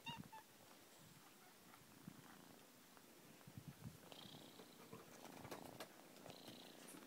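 Domestic cat purring faintly, close to the microphone while being stroked, with soft rubbing of fur and fingers. A brief high note sounds right at the start.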